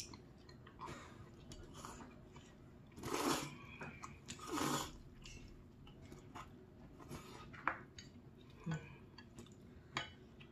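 Eating sounds at a mukbang table: chewing of spicy noodles and rice cakes, with light clicks of utensils against dishes and two longer, louder eating sounds about three and four and a half seconds in.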